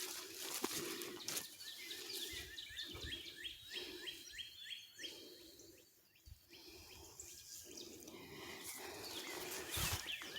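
Songbirds singing, one giving quick runs of high, downward-sliding notes several times a second, with scattered crunching steps on the forest floor.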